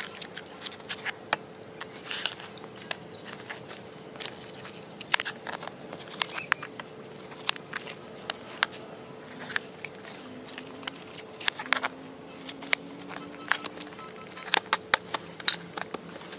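Kitchen knife cutting peeled pineapple on a plastic cutting board: irregular sharp knocks and clicks as the blade chops through the fruit and strikes the board, with the pieces being handled and set down.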